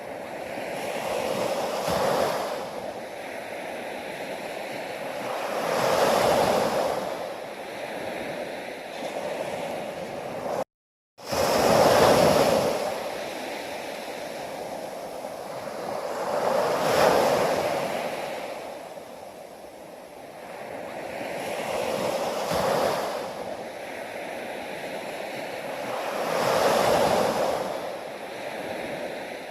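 Ocean waves washing in, each surge swelling and ebbing about every four to five seconds. About a third of the way in, the sound cuts out completely for half a second.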